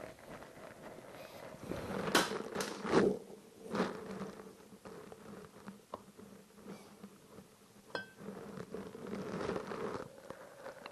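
A motorcycle rear-wheel drive flange being wiggled by hand into the wheel hub: several knocks and scrapes of metal parts about two to four seconds in and a sharp click near eight seconds, over a steady low hum.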